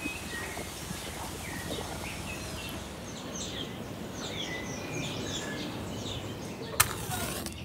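Birds chirping, many short high-pitched calls over a steady background of outdoor noise. A single sharp knock comes near the end, followed by a brief hiss.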